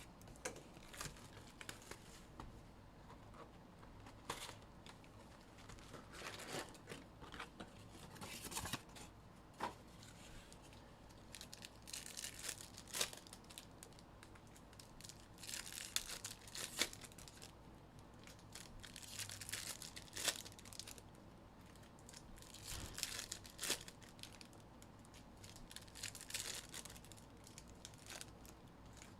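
Trading card pack wrappers being torn open and crumpled by hand, a string of short crinkly tearing bursts every few seconds with a few light ticks between them.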